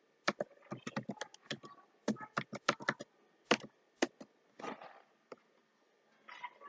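Computer keyboard being typed on: a quick run of keystrokes for about three and a half seconds, then a few single key presses.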